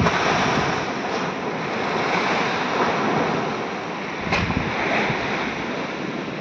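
Storm surf breaking against a concrete sea wall and its steps, a steady rushing of waves that swells and eases as each wave comes in and washes across the concrete.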